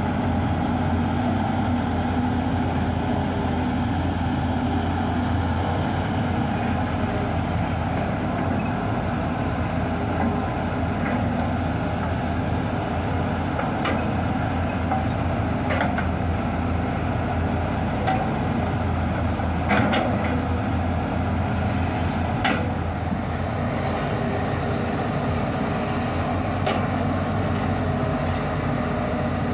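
Hitachi ZX210 excavator's diesel engine running steadily under load while digging, with a few sharp knocks as the bucket strikes rock, the loudest about two-thirds of the way through.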